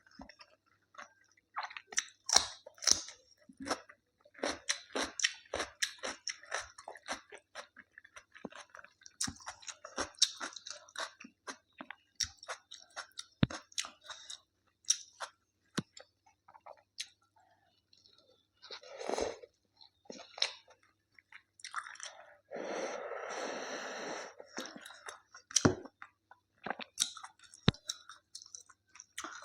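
Close-miked chewing and mouth sounds of a person eating, with many short wet smacks and crunchy bites. There is a denser noisy stretch lasting about two seconds, three quarters of the way through.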